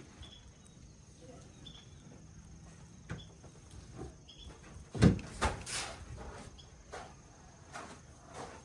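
Crickets chirping faintly in the background, broken by a few knocks and thumps, the loudest cluster about five seconds in.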